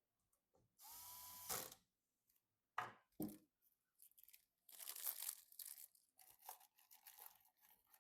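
A small electric screwdriver whirs briefly, its pitch rising and then holding for under a second, as it drives a screw into a PC's hardware. Then come two sharp clicks and a stretch of crackly rustling as parts are handled.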